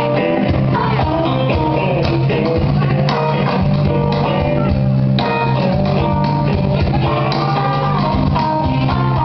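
Live band playing amplified music: acoustic-electric guitar, electric bass guitar and cajon, with a melody line that bends in pitch.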